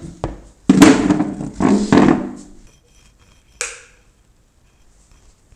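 White plastic chair being pushed in at a table: a sudden thunk less than a second in, then about two seconds of scraping. A single short knock follows a little later.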